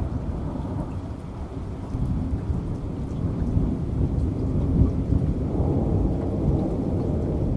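Low, continuous rumble of thunder over steady rain, swelling about two seconds in and loudest around the middle.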